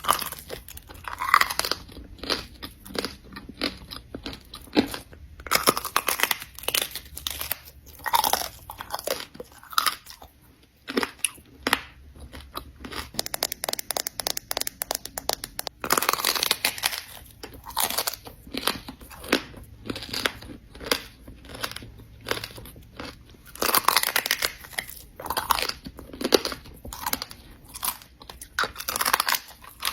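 Close-up chewing of crunchy food, with sharp crackling bites and crunches coming in irregular clusters.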